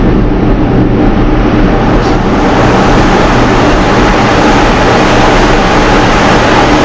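Train-horn kit's on-board air compressor running steadily at full volume, a loud noisy drone with a low hum, refilling the air tank after a horn blast.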